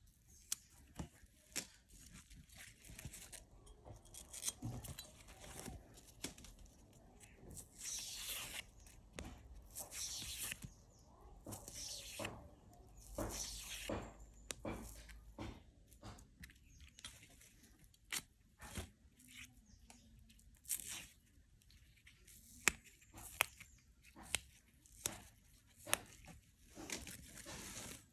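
Taro leaf stalks being snapped and their fibrous outer skin peeled off by hand: a string of sharp snaps among several longer tearing rips that drop in pitch as the strips pull away.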